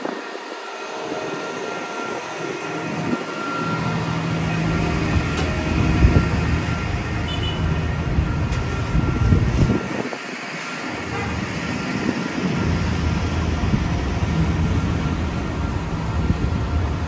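Heavy vehicle rumble with a steady low engine hum, building a few seconds in, dropping away briefly near the middle, then returning.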